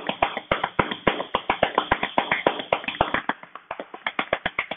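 Chest percussion: cupped, gloved hands clapping rapidly on a patient's back over the lower lobes of the lungs, in an even rhythm of about seven claps a second, to loosen phlegm so it can drain and be coughed up.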